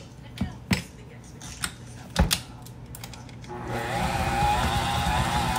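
A few knocks of a metal spoon scraping sour cream into a stainless-steel mixing bowl, then about three and a half seconds in an electric stand mixer starts up and runs steadily, its flat beater churning a thick chicken and cream cheese filling.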